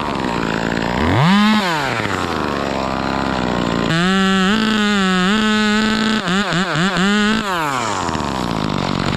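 Chainsaw engine revving and dropping back to idle: a short rev about a second in, a longer held rev from about four seconds in with several quick throttle blips, then falling back to idle.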